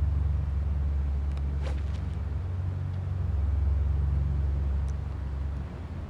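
Steady low outdoor rumble, with a single faint tick a little under two seconds in.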